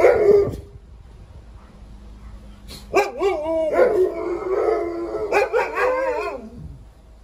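Alaskan malamutes howling and yowling, in calls that bend up and down in pitch: a short call at the start, then a longer run of several seconds from about three seconds in. It is a mock-fierce guard-dog display at someone at the gate.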